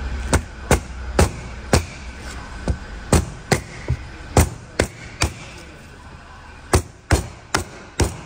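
Hammer tapping repeatedly, about fifteen sharp blows at roughly two a second with a pause of about a second and a half past the middle, flattening the bent access plug prised out of the engine so it can be reused.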